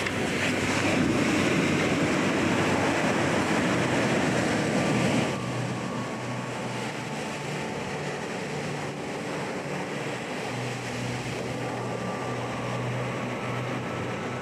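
Ocean surf rushing and washing, loud for about the first five seconds, then dropping suddenly to a quieter, steady wash of surf.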